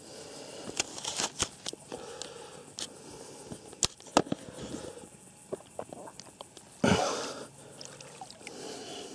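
Water splashing and dripping around a person wading waist-deep, as a shot duck is grabbed and pulled out of the water. Scattered small splashes lead up to a louder splash about seven seconds in.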